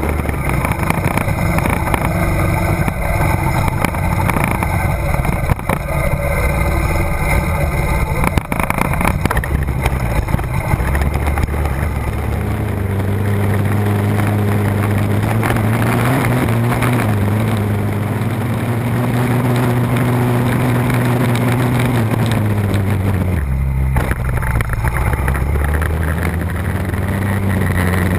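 A mini ATV's small engine running hard under way, its pitch rising and falling as the throttle changes, dipping briefly about 23 seconds in and then picking back up, over the rattle and rumble of the machine on a rough dirt trail.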